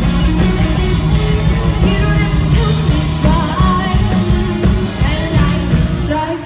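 Pop-rock band playing live with a lead singer, recorded loud from the audience; the music cuts off near the end.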